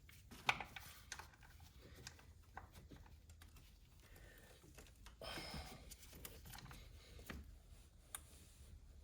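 Faint, irregular light clicks and taps of hand tools and engine parts being handled, with a slightly louder scraping patch about five seconds in.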